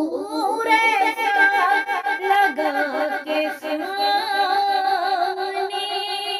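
A woman's voice singing a naat, an Urdu devotional song, in long wavering notes with reverb.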